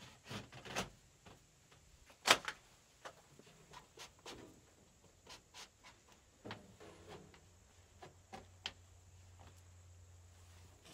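Scattered knocks and clicks from hands-on building work, the loudest a single sharp knock about two seconds in. A faint low hum comes in about halfway through.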